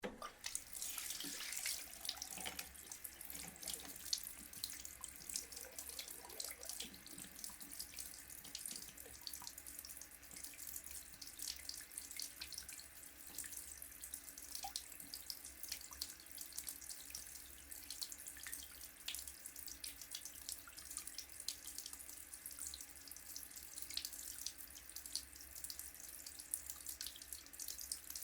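Water running steadily from a tap into a sink, a continuous splashing hiss with fine crackles of spatter.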